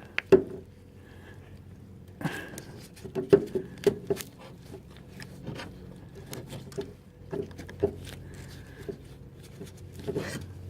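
Long-nose pliers working a spring hose clip onto a rubber fuel hose: irregular small metallic clicks, taps and knocks over a low steady hum.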